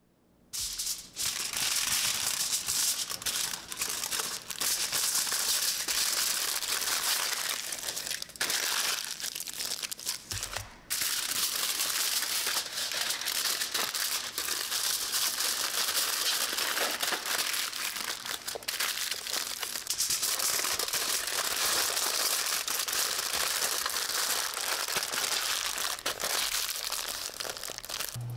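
Continuous crinkling and rustling with many small crackles, dropping out briefly about ten seconds in.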